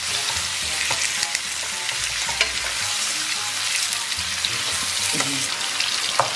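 Pork ribs sizzling in hot oil in a stainless steel wok while a wooden spatula stirs and turns them, with a steady hiss and a few small knocks of the spatula against the pan.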